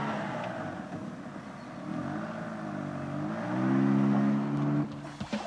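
Car engine running and revving, its pitch dipping and then rising again about two to three and a half seconds in. It holds louder for a moment, then cuts off near the end.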